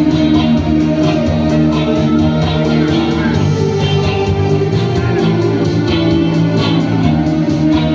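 Recorded music with guitar over a steady beat.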